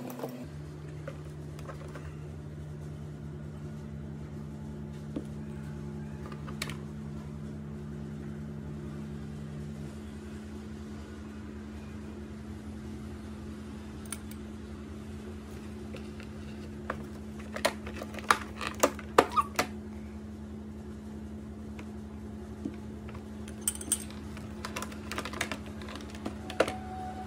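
Small glass sample bottles, a glass pipette and a beaker clicking and tapping as they are handled on a table, in two short runs of quick knocks, over a steady low hum.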